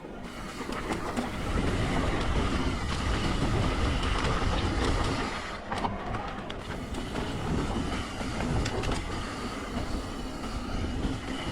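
Mountain bike riding down a rough dirt trail: tyres rumbling over the ground and the bike rattling, with scattered sharp clicks and a brief quieter moment about six seconds in.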